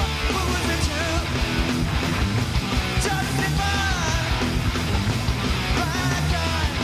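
Punk rock band playing live: electric guitars and drums, with a male lead singer half-singing, half-shouting the vocals into the microphone.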